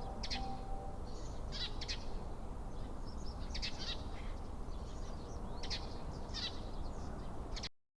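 Birds chirping in short calls at irregular intervals over a low, steady background rumble, while the last tones of the outdoor loudspeaker chime die away in the first second. The sound cuts off just before the end.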